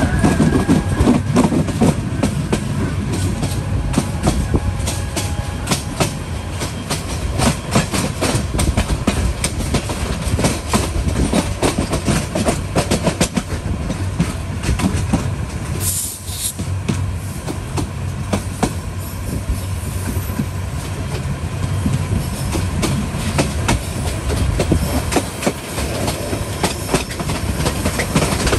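A passenger train's coach wheels running over the rails, heard from a window of the moving coach. There is a steady rumble with continual clickety-clack over the rail joints, and a short high hiss about halfway through.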